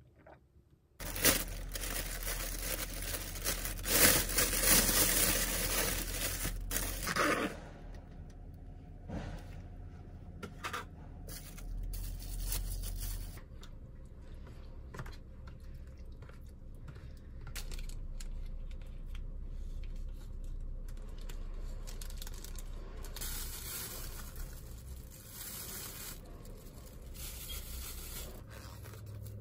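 Takeout food packaging being torn and crinkled open, loudest in the first several seconds. This is followed by quieter handling of plastic containers and a spoon scraping in a plastic bowl of soup.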